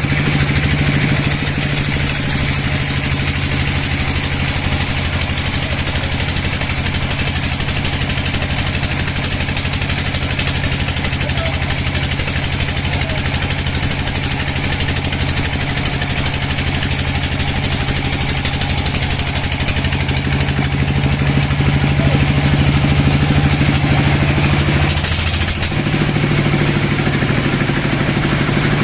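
Sawmill machinery running: an engine holds a steady note under a constant noisy rush, and the engine note drops and changes about 25 seconds in.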